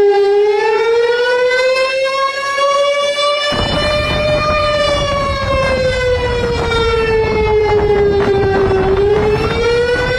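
Warning siren wailing, its pitch slowly rising, then falling for several seconds, then rising again. The low rush of floodwater comes in about a third of the way through.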